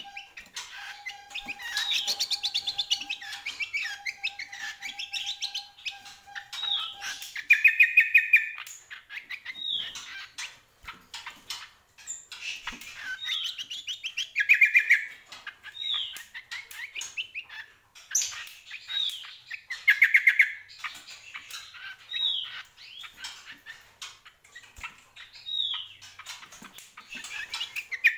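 Caged cucak kombo singing busily: short down-slurred whistles with a loud, rapid trill about every five to six seconds, mixed with sharp wing flutters and hops. A faint steady tone runs underneath and stops about seven seconds in.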